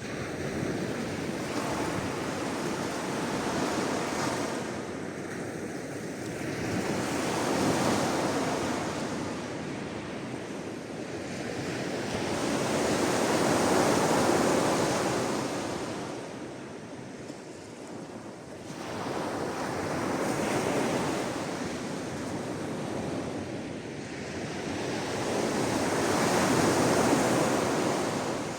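Sea waves washing onto a shore, a steady rush that swells and falls back in slow surges every few seconds.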